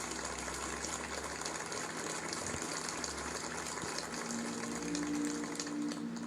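An audience applauding, a dense steady clatter of many hands clapping. Music with sustained tones comes in under it about four seconds in.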